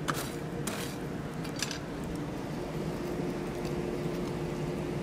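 Steady hum of a running blacksmith's forge, with a constant low tone, and three brief scraping clinks in the first two seconds as the hot steel is handled.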